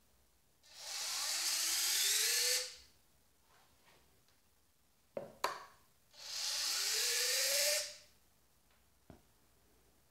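Walkera Scout X4 quadcopter's retractable landing-gear servo running twice, each run about two seconds with a whine that rises in pitch: the legs fold up, then lower again, with a couple of clicks between the runs. The retract speed has been turned down on the transmitter to put less strain on the drone's main board.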